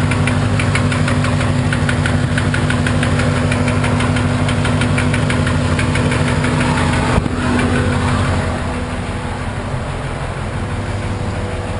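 1991 Corvette's L98 5.7-litre V8 idling with a rapid, regular knock, which the owner suspects is rod knock. About seven seconds in there is a sharp click, after which the knocking fades and the overall sound drops a little.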